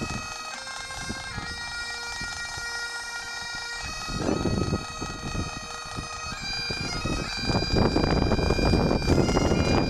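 Bagpipes playing a slow melody over a steady drone. Wind rumbles on the microphone, briefly about four seconds in and more heavily in the second half.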